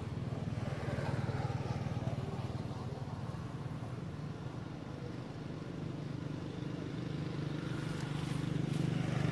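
A motor engine running steadily, with a low, even pulsing hum that grows a little louder near the end.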